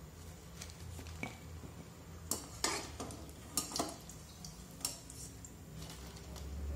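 A wire-mesh skimmer knocking and scraping against a kadhai of hot frying oil as medu vadas are lifted out, several sharp metal clinks between about two and five seconds in. The oil sizzles faintly underneath.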